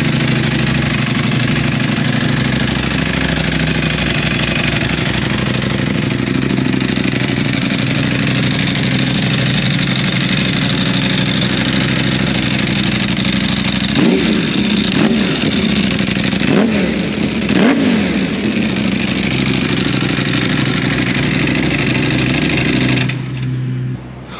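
Ducati Panigale V4R's V4 engine through an Akrapovic exhaust, loud and idling steadily, blipped four times in quick succession about halfway through, then back to idle and switched off near the end.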